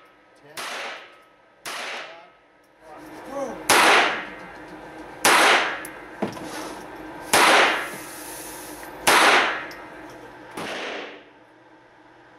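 Walther P22 .22 LR pistol firing single shots, seven sharp cracks each with a short echo off the range walls, spaced roughly one and a half to two seconds apart; the first two and the last are fainter than the four loud ones in the middle.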